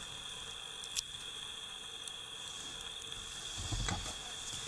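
Steady background hiss with a thin, constant high-pitched whine, broken by one sharp click about a second in and a brief low rumble near the end.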